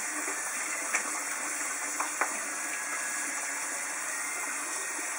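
Water running steadily from a tap, with a few light knocks about one and two seconds in.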